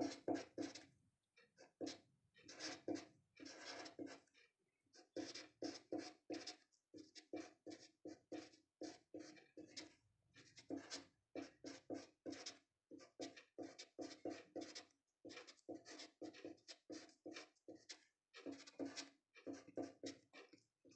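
Felt-tip marker scratching across paper as numbers and symbols are written, in quick, irregular strokes with short pauses between them. The strokes are faint.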